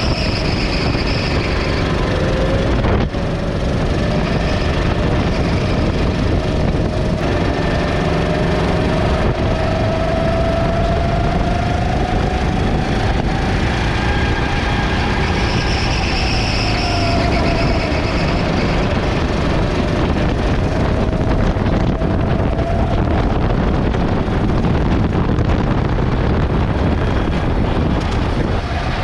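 Motor vehicle engines running steadily, with one engine's pitch slowly rising and falling over several seconds.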